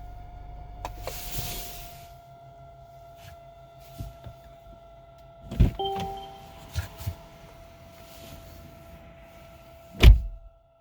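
Steady, fan-like whizzing whine from the center fascia of a Mercedes-Benz, heard after the car has been driven. Several sharp clicks come a little past halfway, along with a short two-note beep, and a loud thump comes near the end.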